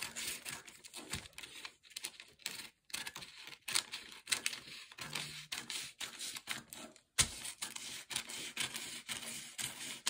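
Scissors cutting through paper: a quick, uneven run of crisp snips as the blades close again and again along a curved line, with a brief pause and a sharper thump about seven seconds in.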